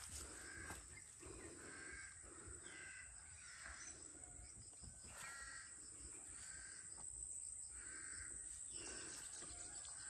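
Faint, quiet field ambience: a series of short animal calls, roughly one a second, over a steady high-pitched insect drone.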